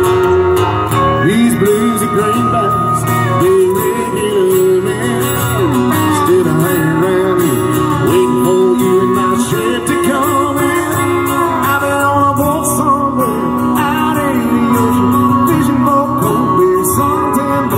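Live country band music played through PA speakers: strummed acoustic guitar and keyboard, with a melody line that slides and wavers in pitch over the accompaniment.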